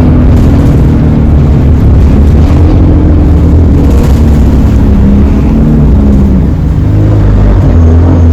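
ADL Enviro 200 single-deck bus under way, heard from on board: a loud low rumble with a wavering whine from the axle, which sounds electric.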